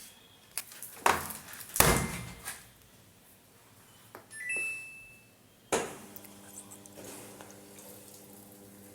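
Samsung top-loading washing machine being started: a few knocks, then short high beeps from the control panel, then a click and a steady low hum as the machine starts up and begins to fill with water.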